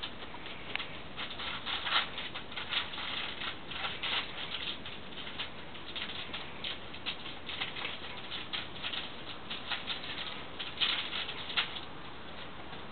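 Siberian husky puppies and an adult husky scampering about: a rapid, irregular patter of claws clicking on a tiled floor and scuffling on spread newspaper.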